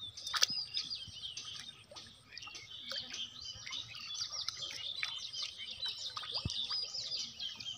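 Many small birds chirping and twittering at once in a busy, overlapping chorus, with a couple of sharp clicks, one near the start and one later on.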